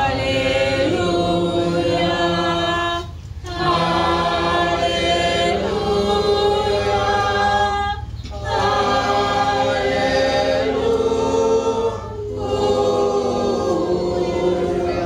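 Church congregation singing together unaccompanied, a sung liturgical response after the Scripture reading, in four phrases with short breaths about 3, 8 and 12 seconds in. A steady low hum runs underneath.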